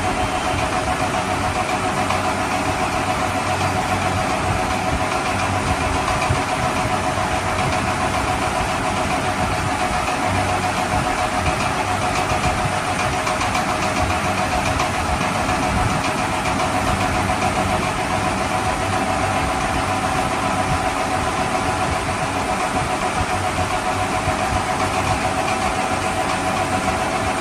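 A motor or engine running steadily at an even pitch, with a constant hum and no change in speed.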